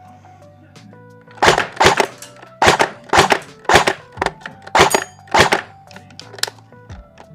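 Airsoft AUG bullpup rifle firing about a dozen single shots in quick, irregular succession, each a sharp crack with the BB's hit on the target, starting about a second in, over background music.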